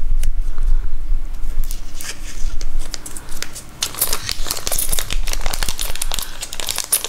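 Small zip-lock plastic bag crinkling and crackling as fingers work it open, with light clicks of the small metal beads inside; the crackling grows busier about halfway through.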